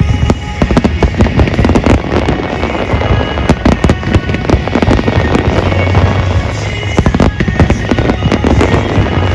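A dense barrage of fireworks going off, many sharp bangs and crackles in quick succession, over music with a steady bass.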